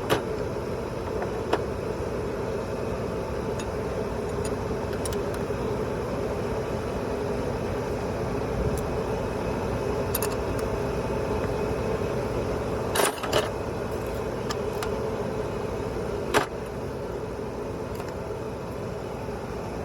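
Metal hand tools clicking and clinking on a diesel engine's valve adjusters during a valve lash adjustment. There are a few sharp clicks, the loudest a short cluster about two-thirds of the way through and one more a few seconds later, over a steady mechanical hum.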